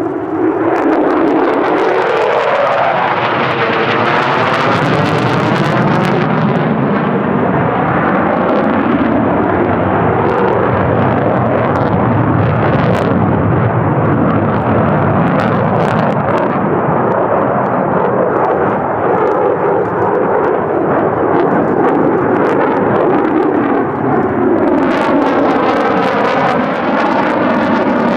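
Single F135 turbofan of an F-35A Lightning II fighter jet, loud throughout, with a sweeping, phasing hiss as the jet moves across the sky. The noise eases a little midway and swells again near the end.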